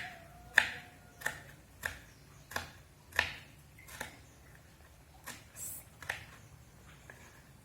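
Knife slicing red chili on a cutting board: single sharp taps of the blade hitting the board, about one every two-thirds of a second, growing sparser and fainter over the last few seconds.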